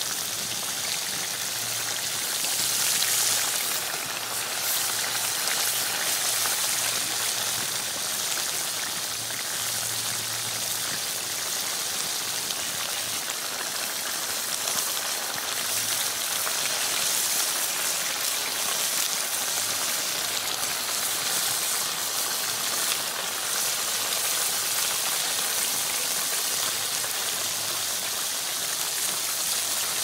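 Crabs frying in oil and masala in a pan: a steady sizzle with faint pops.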